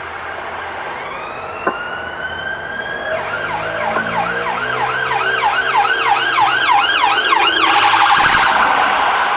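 Emergency vehicle siren growing louder: a rising wail, then a fast yelp of about three sweeps a second, switching near the end to an even faster warble. A single sharp click comes about a second and a half in.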